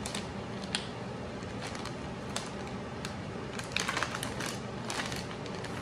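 Plastic bag of shredded cheddar cheese crinkling as it is handled and shaken out over food: scattered sharp rustles, with a quick flurry of crinkles about four seconds in, over a steady low background hum.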